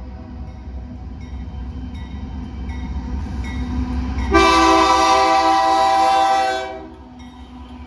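Diesel freight locomotives rumbling past, with the lead locomotive's horn sounding one loud blast of several notes together, about four seconds in and lasting roughly two and a half seconds.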